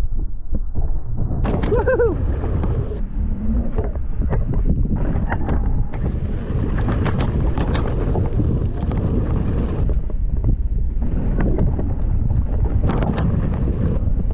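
Wind rushing over the microphone of a mountain biker's camera while riding fast down a dirt trail, with rattles and clicks from the bike over the rough ground.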